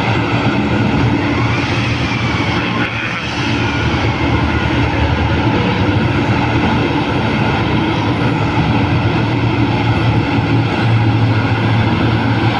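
Large mining hydraulic excavator's diesel engine running steadily under load, with a faint high whine that rises and falls about two seconds in.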